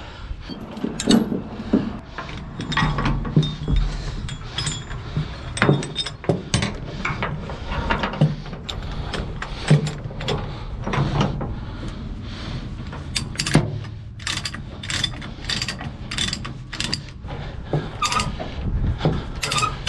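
Heavy steel tie-down chain and chain-binder hardware clinking and clanking as the chain is handled, hooked and tightened on a wooden trailer deck, in many sharp, irregular metal clicks that come thickest about two-thirds of the way through.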